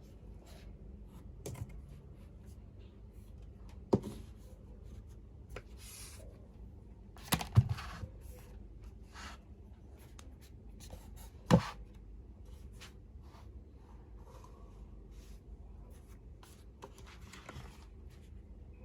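Hands handling an Apple Magic Keyboard and its packaging: light paper and plastic rustling with scattered small clicks and a few sharp knocks, the loudest about halfway through and again a few seconds later.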